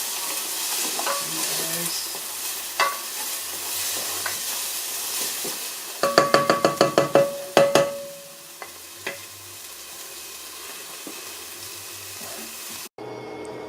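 Onions sizzling as they sauté in a hot pan and are stirred. About six seconds in, a quick run of sharp, ringing metallic taps, roughly five a second, then the sizzle carries on more quietly.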